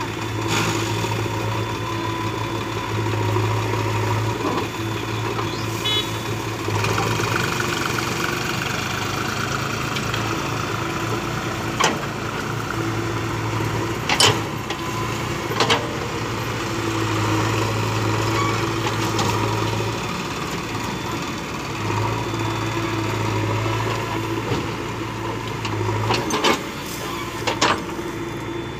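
JCB 3DX backhoe loader's diesel engine running while the backhoe digs soil, its low hum swelling and dropping every few seconds as it takes load. A few sharp knocks from the digging come through, two around the middle and two near the end.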